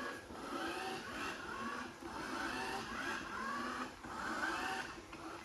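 Robot vacuum cleaner running, its motor whirring with a pitch that keeps rising and falling.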